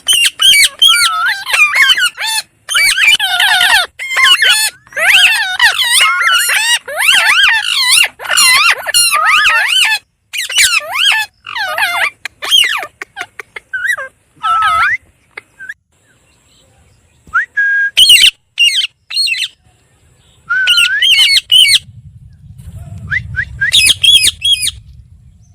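Pet parrot squawking and chattering in rapid strings of harsh, warbling calls for about the first fifteen seconds, then a few scattered short calls, with a faint low rumble near the end.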